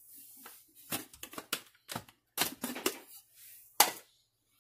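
Plastic food processor lid being twisted off and the bowl handled: a string of irregular clicks and clacks, the loudest a sharp knock near the end.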